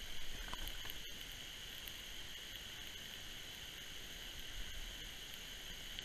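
Small electric water pump of a toy fire truck running with a steady high whine while it pumps a thin jet of water through its hose.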